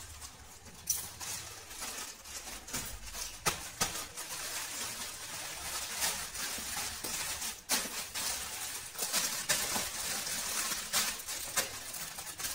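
Plastic courier mailer bag crinkling and rustling as it is cut open with scissors and pulled apart, then the clear plastic wrap around a folded saree rustling as it is handled. Irregular sharp crackles start about a second in.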